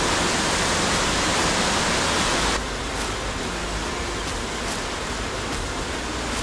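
Steady rush of a waterfall and fast stream water, dropping abruptly in level about two and a half seconds in.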